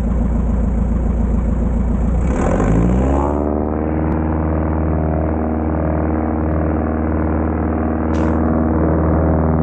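Light bush plane's piston engine and propeller running at low power, then opened up to takeoff power about two and a half seconds in, the pitch rising over about a second and then holding steady through the takeoff roll.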